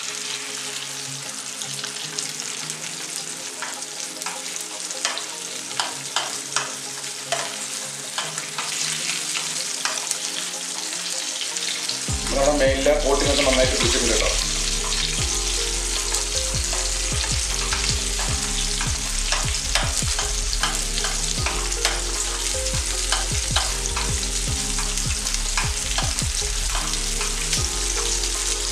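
Whole tilapia shallow-frying in coconut oil in a grill pan: a steady sizzle with frequent small pops and crackles of spattering oil, as hot oil is spooned over the fish. The sizzle grows louder about twelve seconds in.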